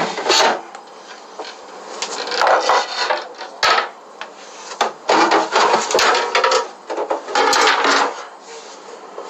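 Plastic crisper drawers and shelves of an empty refrigerator being handled and pulled out: irregular clattering and scraping bumps, with a sharp knock a little past the middle.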